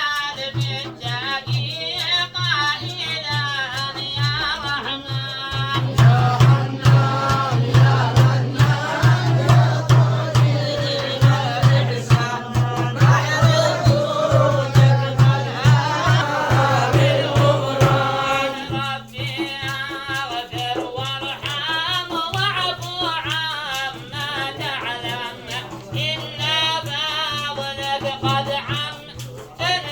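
Singing or chanting voice holding long, wavering notes over a steady rhythmic beat, fuller and louder through the middle stretch.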